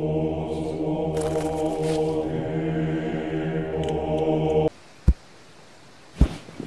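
Droning chant of many voices holding a low chord, cutting off abruptly about four and a half seconds in. Two short, low thumps about a second apart follow in the quiet.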